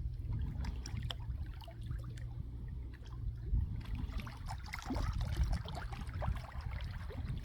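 Water trickling and splashing, with many small irregular drips and splashes over a steady low rumble; the splashing gets busier about halfway through.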